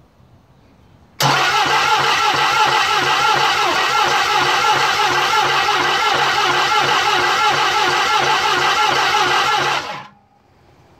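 Isuzu 4HK1-TC 5.2-litre four-cylinder turbo diesel cranking on its starter motor with an even, pulsing rhythm for about nine seconds without firing, then stopping suddenly. It turns over but will not start.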